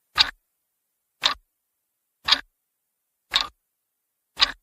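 Clock-tick sound effect counting down the answer time: five sharp ticks, about one a second, with dead silence between them.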